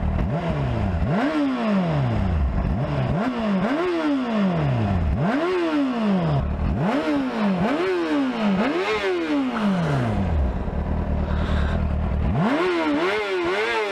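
Honda CBR 600 RR PC37's inline-four on its stock underseat exhaust, revved again and again: each rev rises sharply and falls back to idle, about eight in the first ten seconds. It idles briefly, then takes a quick run of short throttle blips near the end.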